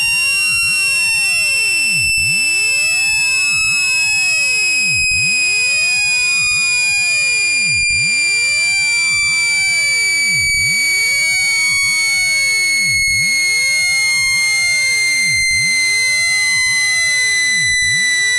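Synthetic speaker-cleaning tone: a loud, steady, high-pitched electronic tone with overtones, gliding slowly down in pitch, played to vibrate a speaker's membrane and push out water and dust.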